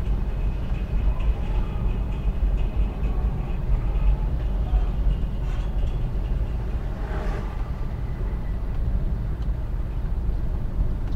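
Suzuki Carry Futura's engine and road noise heard from inside the cab while driving, a steady low rumble.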